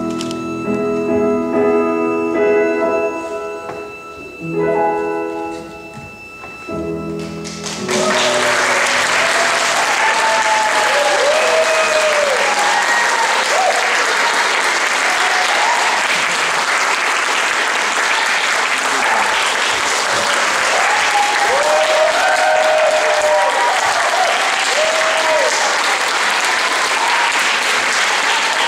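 Piano music sounding its last held notes, then, about eight seconds in, an audience breaking into loud steady applause with cheers and whoops over it.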